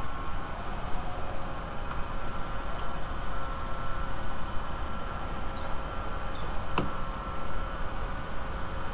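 Steady low background noise, with one sharp click about seven seconds in as a wiper link is pushed onto its ball pin on the wiper linkage.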